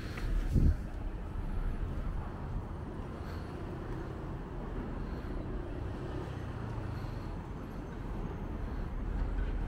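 Steady low rumble of city street traffic, with a brief low thump about half a second in.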